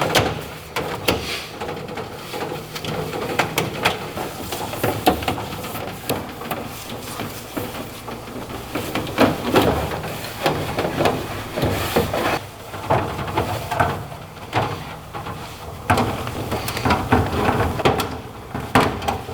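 Metal toolbox drawers being handled: irregular clicks, knocks and sliding scrapes, with no steady rhythm.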